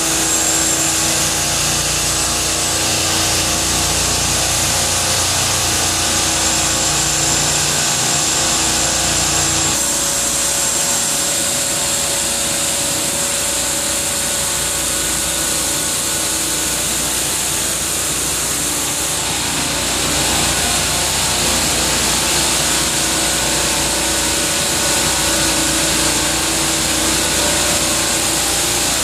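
Parallel refrigeration rack's compressors running: a loud, steady mechanical hum with a hiss over it. About ten seconds in the lowest hum drops out and the pitch of the steady tones shifts, then the running goes on evenly.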